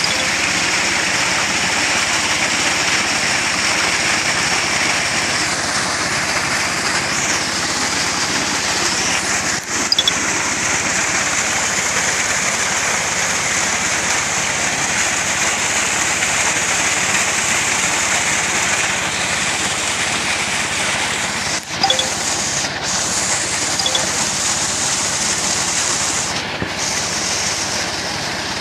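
Dongfeng diesel engine running steadily at working speed, driving a pump that lifts sand and water up a pipe into a truck. A dense, steady rush of noise comes over the engine. Two brief dips occur about 10 and 22 seconds in.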